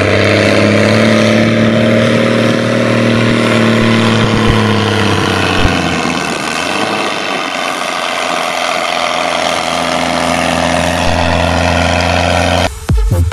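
Zetor ZTS tractor's diesel engine running under load as it pulls a loaded silage trailer, a steady engine note that shifts in pitch about halfway through. Music cuts back in near the end.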